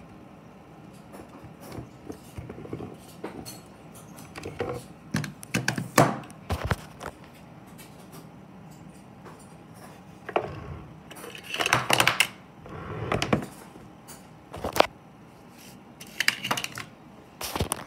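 Handling noise on a workbench: scattered knocks, clicks and clatter of hard wood and metal objects, in several short flurries with quieter gaps between.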